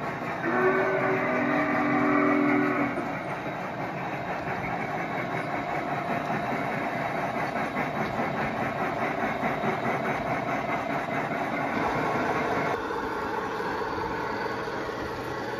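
Onboard sound system of an MTH G scale Big Boy model steam locomotive: a chime whistle sounds for the first three seconds or so, then a steady rapid chuff runs on.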